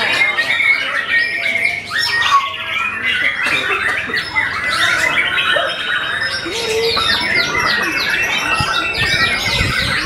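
Many white-rumped shamas singing at once: a loud, dense, continuous tangle of overlapping whistles, trills and rapid chattering calls.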